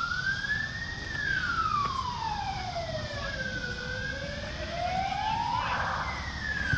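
Emergency vehicle siren wailing, its pitch slowly rising, falling and rising again, then switching to a different, harsher pattern near the end.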